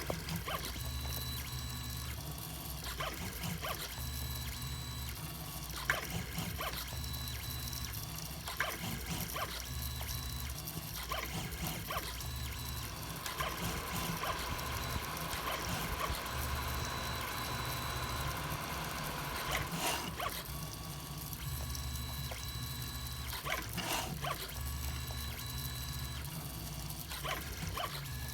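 3D printer's stepper motors buzzing through a print, their pitch shifting in steps with each move, with light ticks throughout. A hissier stretch comes about halfway through and lasts several seconds.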